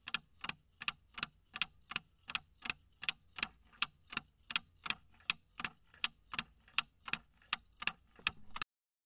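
Clock-ticking sound effect of a countdown timer, sharp even ticks a little under three a second, that stops suddenly near the end as the countdown runs out.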